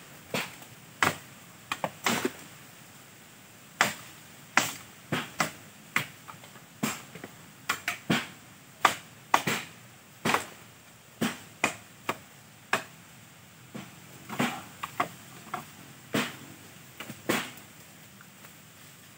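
Dry bamboo stems cracking and knocking as they are broken off and pulled loose from a bamboo clump: sharp, irregular snaps and hits, about one or two a second.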